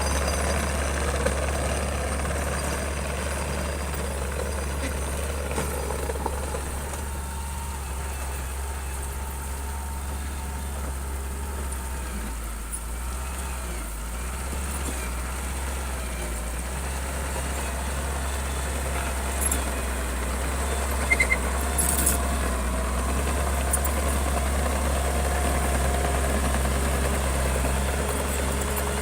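Heavy construction machine's diesel engine running steadily, its level slowly rising and falling, with a few short knocks about three-quarters of the way through.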